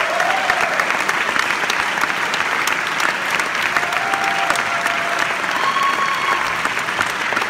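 Audience applauding steadily after a percussion ensemble's performance.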